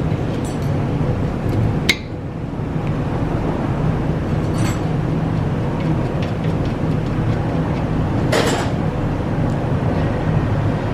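A few sharp metallic clinks and scrapes of hand tools working on a car's front brake caliper: a sharp clink about two seconds in and a longer scraping clatter near the end, over a steady low hum.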